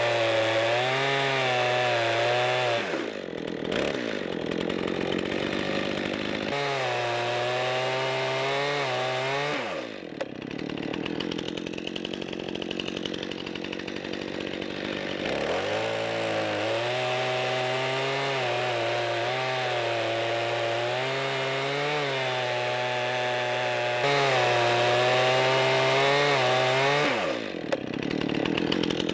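Gas chainsaw cutting lengthwise into an elm log: the engine runs at high revs, its pitch dipping and recovering as the chain bites. It drops back to idle about three seconds in, revs up to cut again for a few seconds, runs lower for several seconds, then cuts hard again from about fifteen seconds until it falls back to idle near the end.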